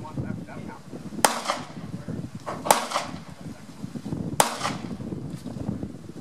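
Three pistol shots about a second and a half apart, each a sharp crack with a short echo after it; the middle one is the loudest.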